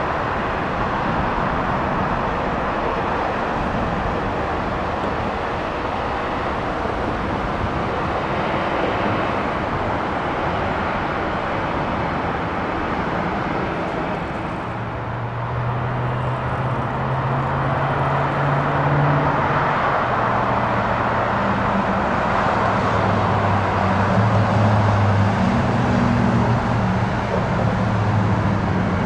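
A steady broad rumble of outdoor airport and traffic noise. About halfway through it dips, and then the jet engines of a Southwest Airlines Boeing 737-700 (CFM56-7B) come in with a low steady hum that slowly grows louder as the aircraft begins its take-off.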